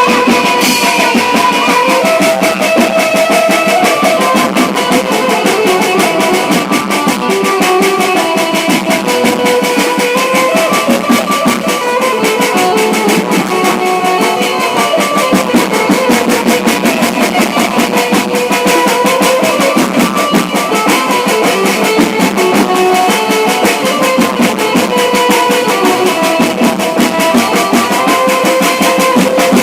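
Loud music with a fast, steady drum beat and a melody over it, played over a sound system.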